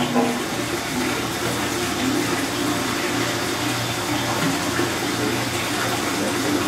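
Steady rush of flowing water with a low, even hum beneath it, from the water supply of an engine dyno cell.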